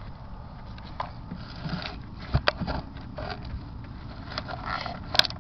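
Camera handling noise inside a small wooden box: scattered knocks and brief scrapes against the wood over a steady low rumble, with the sharpest knocks about two and a half seconds in and near the end.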